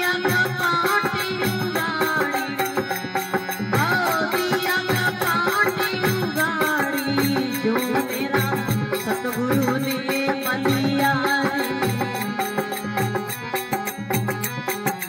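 A man singing a devotional bhajan in long, wavering phrases over a harmonium's held chords, with a steady percussive beat.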